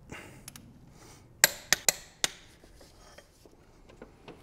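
Click-type torque wrench tightening the camshaft Vanos bolts to 85 Nm, with tool-on-metal handling rattles and four sharp metallic clicks in quick succession about a second and a half in, the wrench signalling that the set torque is reached.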